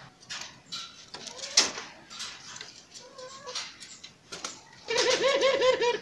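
Ringneck dove giving a wavering coo during the last second, with a faint shorter coo about three seconds in. Before it, scattered soft rustles and light knocks from a hand working in the plastic mesh nest basket under the sitting bird.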